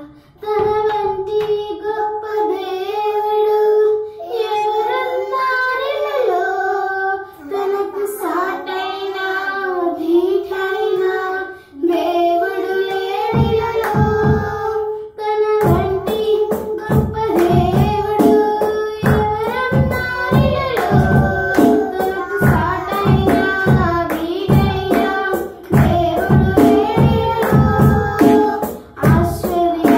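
Telugu devotional hymn music: a pitched melody with children's singing, joined about 13 seconds in by a regular percussion beat that keeps time to the end.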